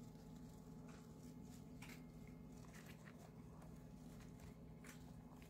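Hamster nibbling broccoli: faint, irregular short clicks, scattered a second or so apart, over a low steady hum.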